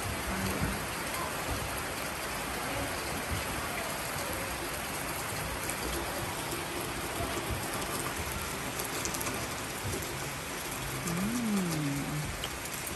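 Steady rain falling, an even hiss with no let-up. About eleven seconds in, a brief pitched sound rises and falls.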